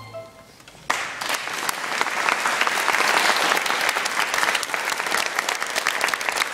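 The last held note of the string orchestra cuts off, and after a brief lull, about a second in, the audience breaks into loud, steady applause.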